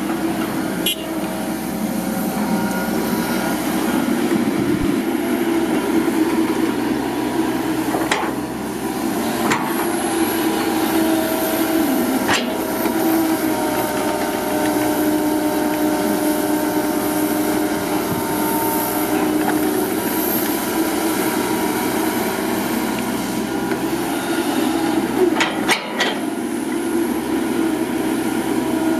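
Komatsu tracked excavator's diesel engine and hydraulics running steadily while it digs, with a few sharp knocks as the bucket works the soil.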